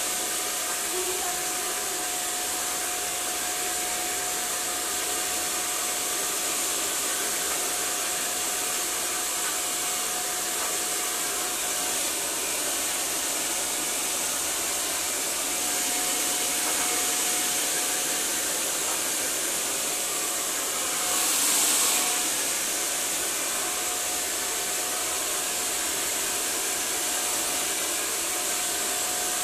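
Handheld hair dryer running steadily during a blow-dry: a constant rush of air over a thin steady motor whine. The rush swells briefly about three-quarters of the way through.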